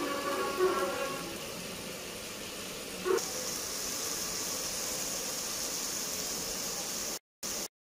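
Onion masala sizzling in hot oil in a pot: a steady high hiss from about three seconds in, which cuts off abruptly near the end. In the first second there is a brief pitched, voice-like sound.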